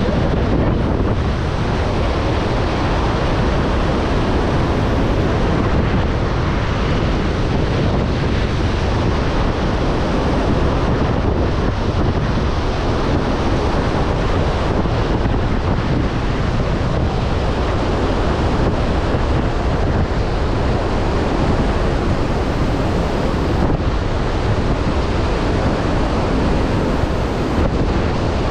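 The Devil's Throat of Iguazu Falls: a loud, steady rush of falling water with no let-up, with wind buffeting the microphone.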